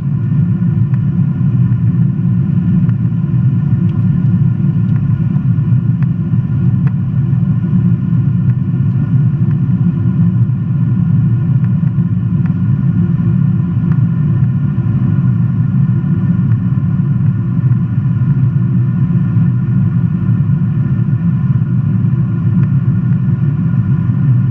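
Cabin noise of an American Airlines Boeing 777-200ER airliner in flight after takeoff: a steady, loud low rumble of engines and airflow with faint steady whining tones above it.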